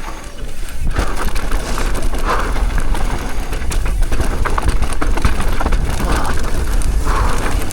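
Downhill mountain bike descending fast over dry, loose dirt: steady wind rumble over the microphone with tyres scrabbling and many small rattles and knocks from the bike over bumps.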